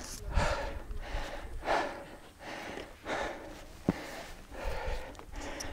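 A person breathing hard close to the microphone, about one breath every second and a half. There is one sharp click a little before four seconds in.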